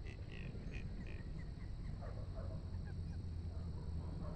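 Scattered short bird calls over a steady low rumble.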